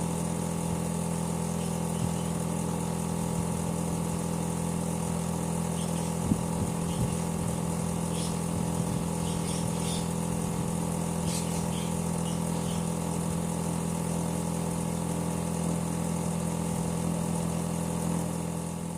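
Air-conditioner outdoor unit running, its compressor giving a steady drone with several fixed tones and a high hiss. A few faint short chirps sound in the middle, and the sound fades out near the end.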